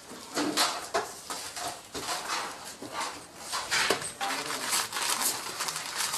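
Thin, dry cassava biscuits being picked up and stacked by hand on a wooden table: irregular light clicks, clatters and scrapes.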